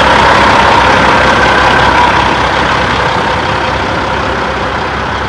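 Kenworth W900 semi-truck's diesel engine idling steadily, a little quieter from about two seconds in.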